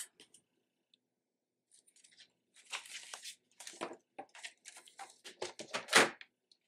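Paper and a plastic paper trimmer being handled and shifted on a cutting mat: a run of light rustles, taps and clicks, with one sharper knock near the end.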